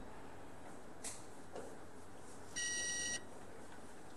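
A single high-pitched electronic beep, about half a second long, a little past halfway through. A faint click comes about a second in.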